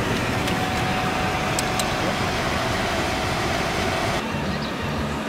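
Steady road and engine noise heard from inside a moving car, with a thin steady tone over it. A little over four seconds in, the sound changes abruptly to a duller, lower hum.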